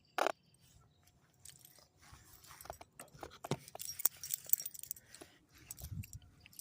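Scattered light clicks, rattles and rustling, with a sharper click just after the start and the densest clatter in the middle.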